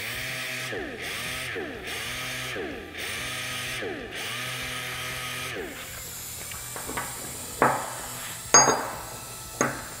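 Handheld palm-grip disc sander running against a steel die ring, its pitch dipping and recovering each time it is pressed on, smoothing a rough spot left where the weld arced through. It stops about six seconds in, followed by a few light metallic clinks.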